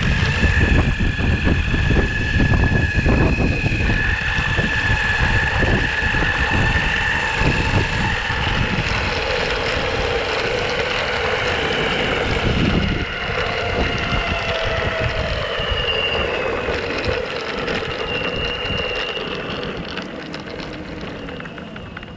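Onsra Black Carve belt-drive electric skateboard riding along: motor whine at several pitches that drift up and down with speed, over wheel rumble on the pavement and wind on the microphone. The sound dies down over the last few seconds.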